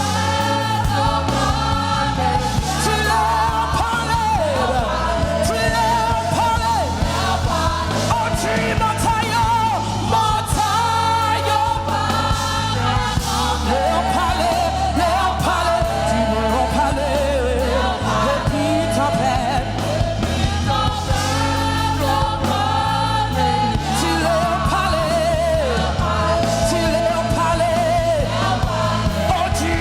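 Gospel worship song: voices singing over a band with a steady bass.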